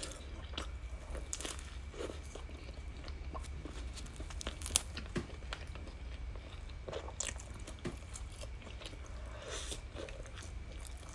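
Close-miked chewing of a hot dog bun with a crusted cheese top: soft crunches and wet mouth clicks, with one sharper click just before halfway.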